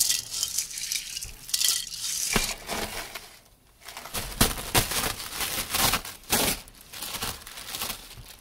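Tissue paper rustling and crinkling close to the microphone as it is handled, in irregular crackles with a short lull about three and a half seconds in.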